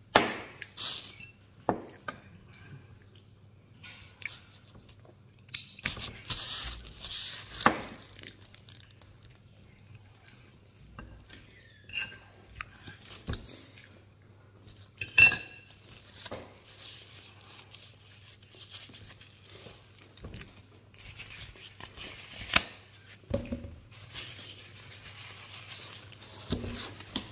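A metal fork clinking and scraping against a ceramic plate many times at uneven intervals, with chewing in between.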